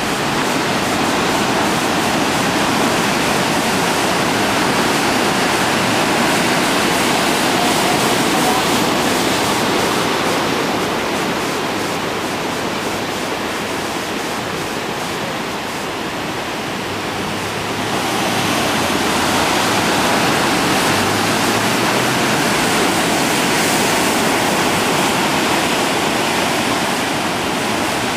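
Heavy Atlantic surf breaking and churning over black volcanic rocks: a loud, continuous rush of water that eases a little about halfway through, then swells again.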